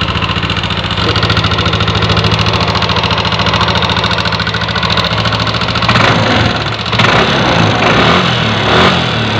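Old-generation Yamaha NMAX's liquid-cooled single-cylinder scooter engine idling with the rough, clattering "kemletek" noise that is being diagnosed. The note is steady, then turns rougher and less even about six seconds in.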